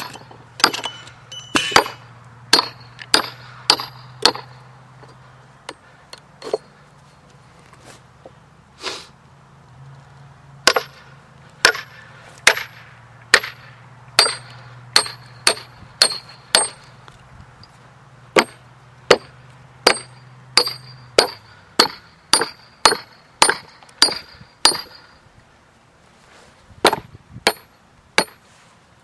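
A hammer drives steel splitting wedges into a green maple log: sharp metal-on-metal strikes with a bright ring, about two a second, in runs broken by short pauses.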